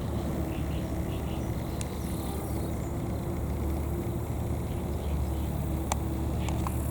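A vehicle engine running steadily as a low hum, with a few faint clicks.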